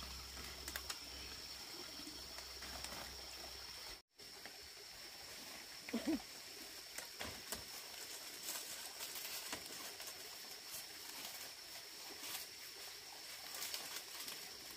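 Dry palm leaves rustling and crackling faintly as they are handled and laid on a bamboo frame, with a steady high-pitched whine behind and a short pitched call about six seconds in. The sound drops out for a moment about four seconds in.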